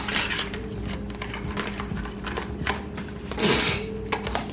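Small clicks and rustles of a rapid antigen test kit's box and packaging being handled, with a longer, louder rustle about three and a half seconds in.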